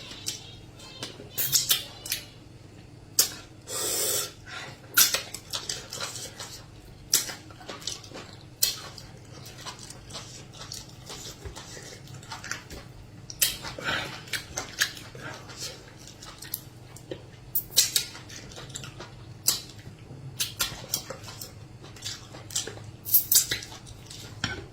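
Close-up eating sounds of amala and soup: lip smacks, chewing and slurps in many short, sharp bursts at irregular intervals, with a longer slurp about four seconds in and occasional light clinks of dishes.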